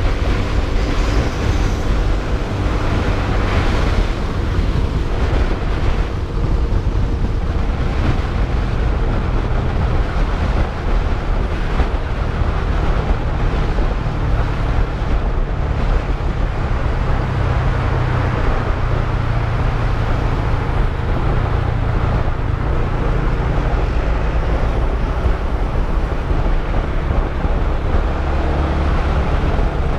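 Modenas GT128 motorcycle's small single-cylinder engine running while riding, mixed with steady wind rush on the handlebar-mounted camera's microphone.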